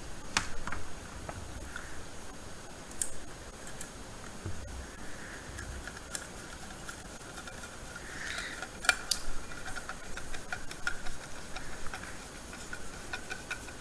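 Scattered light clicks and taps from handling small screws, a screwdriver and a metal hard drive mounting bracket, with a few sharper clicks spread through.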